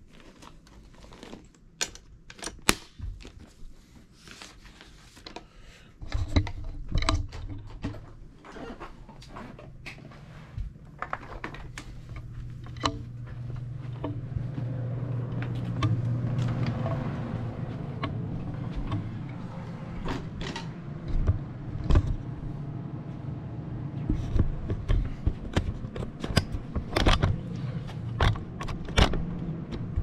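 Vacuum cleaner canister and its metal latch clamp being handled: irregular clicks, knocks and rattles. Under them, a low hum comes in about six seconds in and swells to its loudest near the middle.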